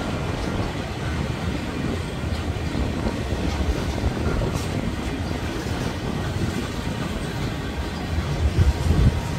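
Freight train of boxcars rolling past: a steady rumble and rattle of steel wheels on the rails, briefly louder near the end.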